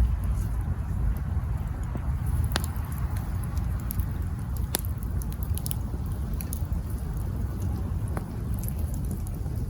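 Wood campfire burning with a steady low rumble and sparse crackles and pops, the sharpest about two and a half, five and eight seconds in.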